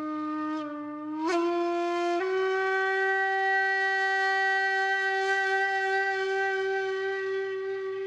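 Background music: a solo wind instrument plays a couple of short notes stepping upward, then holds one long steady note.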